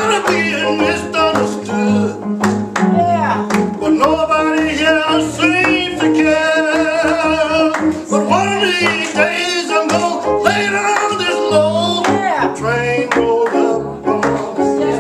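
Live gospel song: voices sing long, wavering notes over a guitar-led band with a walking bass line.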